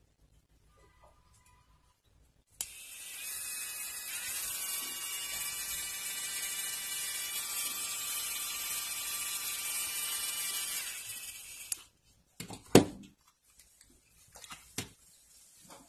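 Pen-style electric nail drill (20,000 rpm micromotor) switched on, running with a steady high-pitched whine for about nine seconds, then switched off. Afterwards a sharp knock and a few small clicks of handling.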